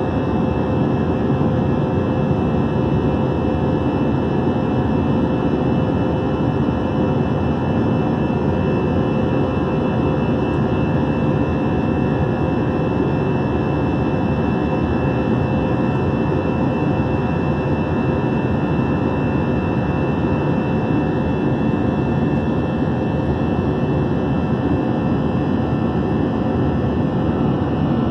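Airbus A321-211 jet airliner heard from inside the cabin in flight: a steady roar of the CFM56 turbofan engines and the airflow, with two steady whining tones, one low and one high, held unchanged throughout.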